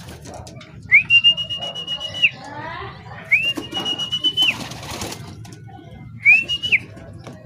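A person whistling three long, level, high notes, each starting with a quick rise and ending with a quick drop, with scattered clicks and pigeons cooing faintly underneath.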